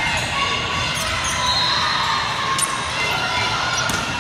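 Indoor volleyball play in an echoing gym: a few sharp smacks of the ball, about a second and a half apart, over sneakers squeaking on the court and spectators chattering.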